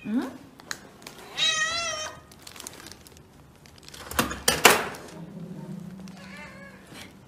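Domestic cat meowing: a short rising call at the start, a long wavering meow about a second and a half in, and a shorter one near the end. Around four seconds in, the loudest part, a door handle and latch clack and the door swings open.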